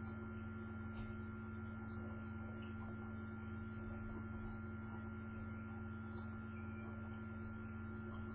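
Steady electrical hum with several constant tones, picked up by a laptop's internal microphone, with a few faint clicks.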